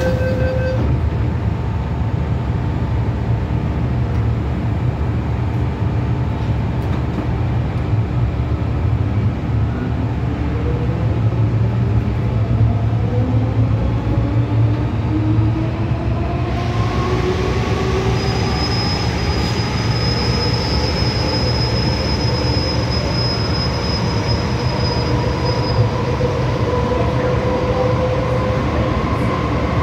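MTR M-Train metro car pulling away and gathering speed: a steady rumble of wheels and running gear, with the traction motors' whine rising slowly in several tones. About 18 seconds in a thin high squeal joins for several seconds.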